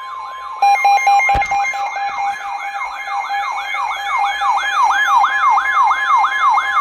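Weather radio alert alarms sounding for a severe thunderstorm warning: a siren-style warble that sweeps down and back up about three times a second, over steady alert tones.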